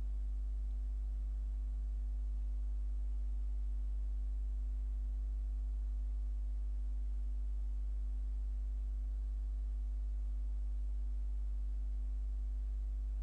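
Steady low electrical hum with faint higher overtones, unchanging throughout; no other sound.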